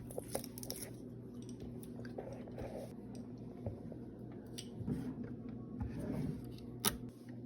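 Faint handling sounds of a plastic adhesive cabinet lock being fitted: soft rustling and scattered small clicks, with a sharper click near the end.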